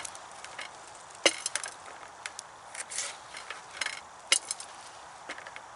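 Knife cutting sweet peppers on a plastic cutting board: a scatter of short sharp taps and clicks, the sharpest about a second in and again just past four seconds.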